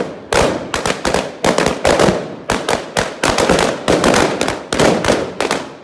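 Firework cake burning in a bonfire, its charges going off in a rapid, irregular string of sharp bangs, about three or four a second.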